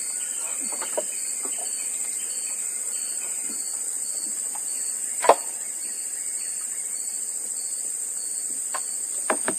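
Steady high-pitched chorus of crickets and other insects, with a chirp that pulses about twice a second. A few faint knocks are scattered through it, the loudest a single sharp knock about five seconds in.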